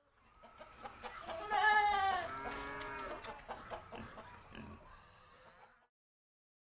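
A sheep bleating twice, about a second and a half in, the second call lower than the first.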